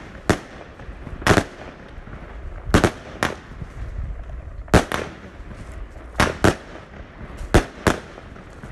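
Lumberjack firework battery (China Red/JFireworks) firing shot after shot into the air, each ending in a sharp bang. There are about nine bangs at irregular intervals of roughly a third of a second to a second and a half.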